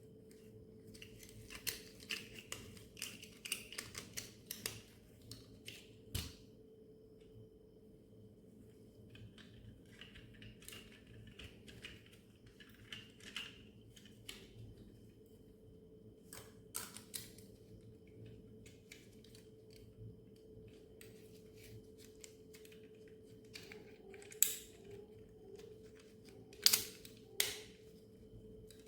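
Clicks, taps and light scraping of small toy parts being handled, in scattered clusters, with a few sharper clicks near the end. A faint steady hum runs underneath.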